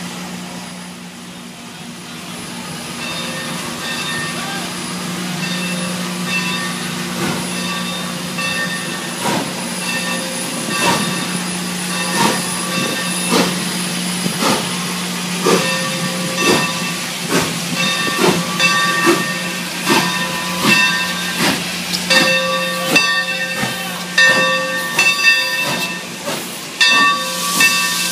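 Santa Fe 3751, a 4-8-4 steam locomotive, moving off slowly with steam hissing. From about a third of the way in, the exhaust beats come regularly and grow quicker as it gathers speed, over a steady low hum, with a ringing that repeats about once a second.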